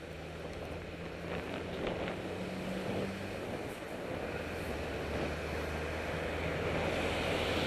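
City traffic and wind heard from a moving bicycle: a steady low engine hum from passing vehicles under wind rushing on the microphone, growing gradually louder.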